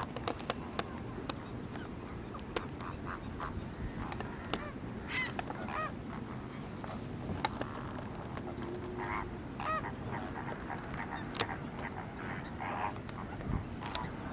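A flock of greater flamingos giving short goose-like honking calls, many separate calls scattered and overlapping over steady low background noise.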